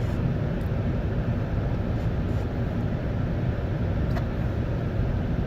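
Steady low rumble of engine and road noise inside the cabin of a 2008 Chevy Tahoe Z71.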